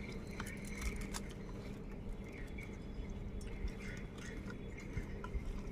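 Fingers mixing rice and dal on a steel plate: soft, faint squishing with scattered small clicks, over a faint steady hum.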